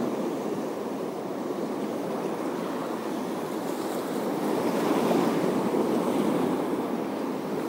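Sea waves washing against a rocky shore: a steady rushing that swells louder around the middle.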